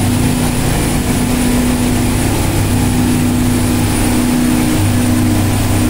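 Sea Ray cruiser's engines running at high speed on a sea trial run, a steady unbroken drone that holds its pitch.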